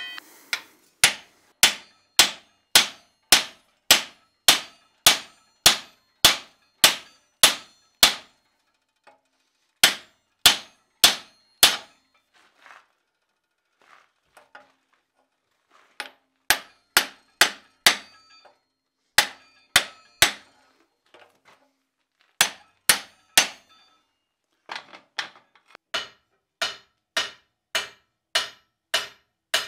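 Blacksmith's hand hammer striking hot iron with ringing metal-on-metal clangs, in runs of steady blows nearly two a second with short pauses between runs. The hammer is driving a fuller down into a bar held in a vise fixture to draw out a longer snout; the last run is on the anvil.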